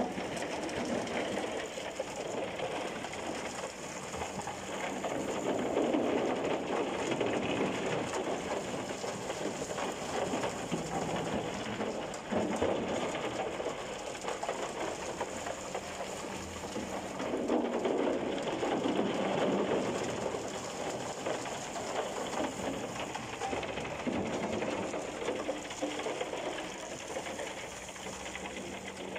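Broken concrete chunks rattling and tumbling in a turning transit mixer drum and pouring down the discharge chute onto a rubble pile: a continuous dense clatter that swells twice, with a steady low hum from the truck underneath.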